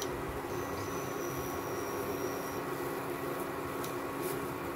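Steady hum of an induction cooktop running under the pan, with a thin high whine over it. A few light scrapes of a silicone spatula in the pan come near the end.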